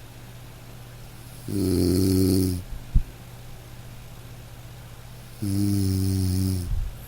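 A person snoring: two long, low snores about four seconds apart, each lasting about a second. A single short, sharp click falls between them.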